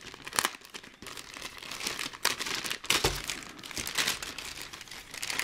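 Clear plastic parts bag crinkling and rustling as it is handled and slit open with a knife, a run of irregular sharp crackles.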